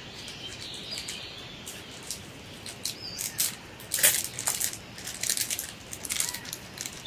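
A paper instruction sheet rustling and crinkling as it is handled and moved, with irregular short crackles.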